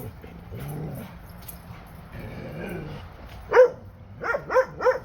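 Dogs at play with a dog barking: one sharp bark about three and a half seconds in, then three quick barks in a row near the end.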